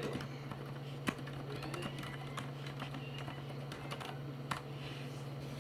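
Typing on a Filco Majestouch2 mechanical keyboard with Cherry MX Silent Red switches and dye-sub keycaps: irregular, soft, damped keystrokes, with a couple of louder strokes about a second in and near the end. A steady low hum runs underneath.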